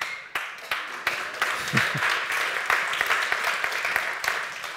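Audience in a hall applauding, many hands clapping, the applause dying away near the end.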